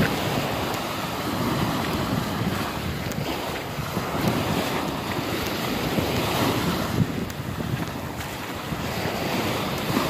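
Small sea waves breaking and washing up a sandy beach in a steady, swelling wash, with wind noise on the microphone.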